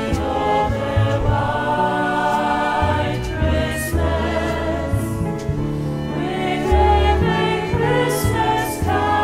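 Vocal ensemble singing held notes in harmony, with vibrato, over instrumental backing with a bass line that moves every second or so.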